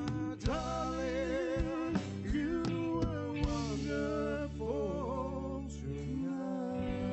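A live band playing an instrumental passage: a melodic lead line with wide vibrato over steady bass notes and drum hits.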